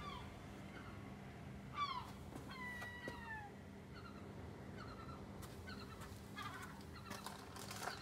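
Gull chicks calling: a series of thin, downward-sliding cries, two longer falling calls about two and a half seconds in, then quicker short calls near the end. These are the begging calls of hungry chicks asking for food.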